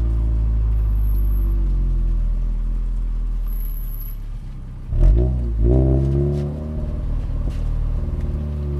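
Toyota 86's flat-four engine pulling steadily, then dropping off as the throttle is lifted. About five seconds in the revs jump sharply and fall back, then climb again before settling into steady running.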